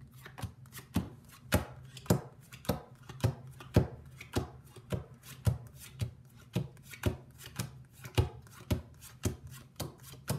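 Playing cards being dealt one at a time onto a wooden tabletop, each card landing with a sharp tap, about two a second in a steady rhythm. The cards are being laid out into face-up piles.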